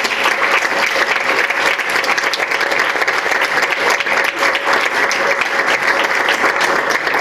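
A roomful of people applauding: steady, dense clapping.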